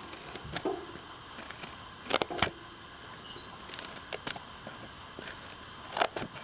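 Small scissors snipping through a paper template and folded cardstock: several short separate snips, the loudest a quick pair about two seconds in and another near the end.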